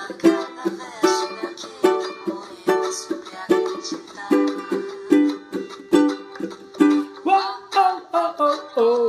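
Ukulele fingerpicked in a steady pattern on three strings, a plucked note about every half second, with a voice singing along near the end.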